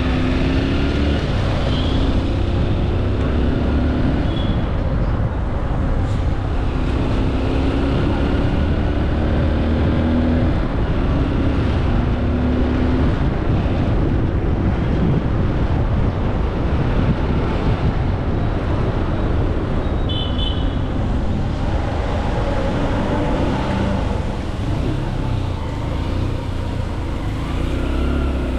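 Street traffic: a steady low rumble of vehicle engines, their pitch rising and falling as they pass, with a few short high-pitched tones near the start and about two-thirds of the way through.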